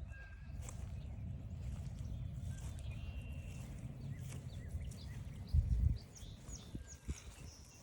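Footsteps along a forest trail over a steady low rumble, with small birds giving quick short chirps in the second half. A low thump about five and a half seconds in is the loudest sound.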